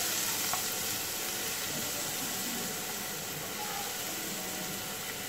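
Chopped onion sizzling in hot oil with cumin seeds in a frying pan, a steady hiss that eases slightly as the onion settles in.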